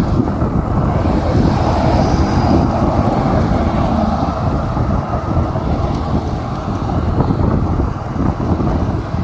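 Wind buffeting the microphone of a moving vehicle, a steady, heavy low rumble with the vehicle's running noise underneath.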